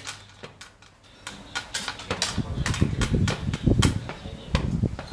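Scattered light clicks, then from about two seconds in a run of low thumps and rumbles of things being handled on a tabletop, over a steady fan hum.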